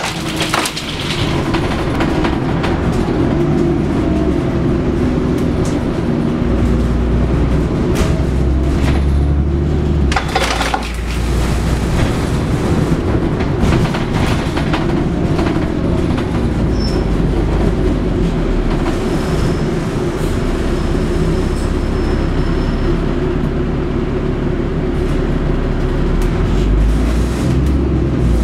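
Moving double-decker bus heard from inside the upper deck: a steady engine and road drone with rattles and occasional clicks and knocks from the body.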